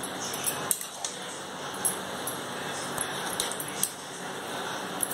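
Steel spatula scraping and clinking against an aluminium kadai as greens and lentils are stirred in a little liquid, with light irregular metallic clicks over a steady hiss of the pan cooking on the stove.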